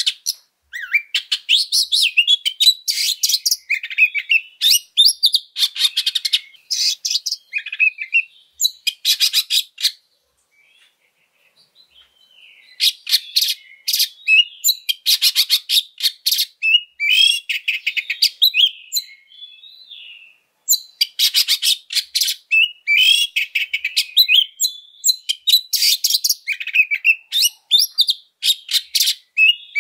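Oriental magpie-robin singing a loud, varied song in fighting mood: bursts of rapid harsh rattles and chattering mixed with whistled glides, in phrases separated by short gaps, with a pause of about two seconds around ten seconds in.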